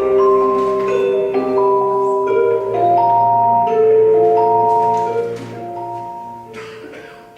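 Background music: a slow line of ringing, sustained notes, one coming in after another and overlapping, fading out over the last two seconds.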